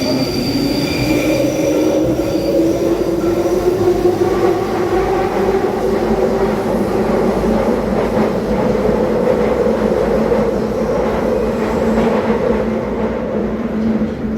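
London Underground Northern line train running through the tunnel, heard from inside the carriage. Its motor whine rises in pitch through the first half as it gathers speed, over a steady rumble of wheels on the rails, with some high wheel squeal early on.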